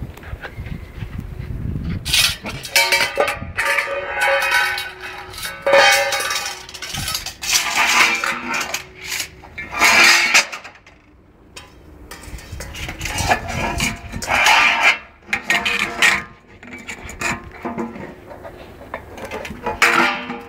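A stainless steel dog bowl clanging and scraping on a concrete floor as two German shepherd puppies paw and bite at it in play. The clatter comes in repeated bursts with a short lull about halfway.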